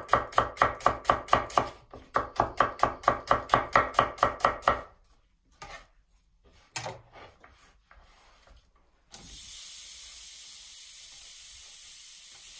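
Chef's knife chopping red onion on a wooden chopping board, quick even strokes about five a second with a short break near two seconds, stopping at about five seconds. After a single knock, the onion slices go into a hot cast-iron pan at about nine seconds and a steady sizzle starts.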